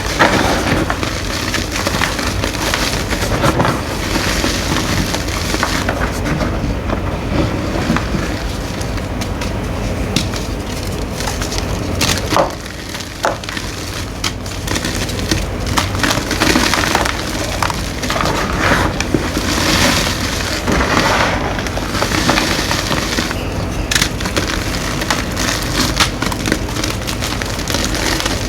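Gym chalk being crushed and crumbled, a dense run of crunches and crackles with a short lull about halfway through.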